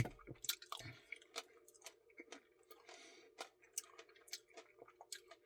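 Quiet chewing of ice cream with candy pieces: scattered soft mouth clicks and small crunches, a few each second, over a faint steady hum.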